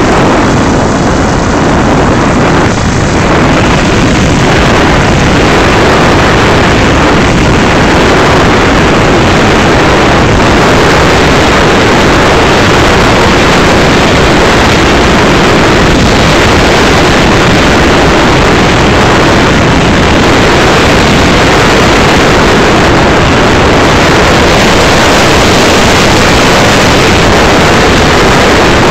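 Radio-controlled SU-25 model jet in flight, heard from a camera riding in its canopy: a loud, steady rush of wind and engine noise with no distinct tones.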